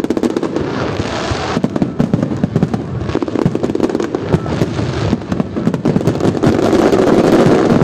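Fireworks display: a dense, continuous run of rapid bangs and crackles, growing louder near the end.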